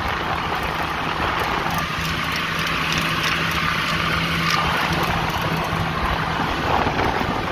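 Oliver 77 tractor's six-cylinder engine running steadily through its muffler while the tractor drives along a gravel road, with a steady rush of wind and road noise around it.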